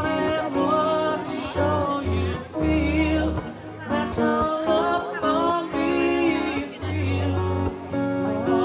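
Live wedding music: singers performing with acoustic guitar and bass.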